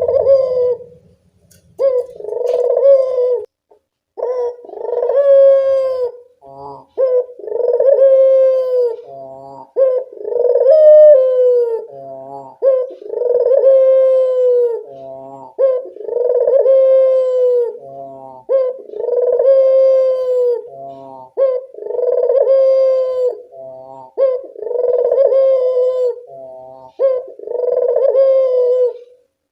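Puter dove (ringneck-type collared dove) cooing in a steady series: a long, slightly falling coo about every two seconds, most of them followed by a short stuttering note.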